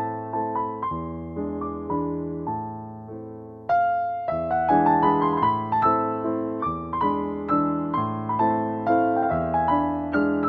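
Background piano music: a gentle run of struck notes that dies down briefly, then picks up again louder about four seconds in.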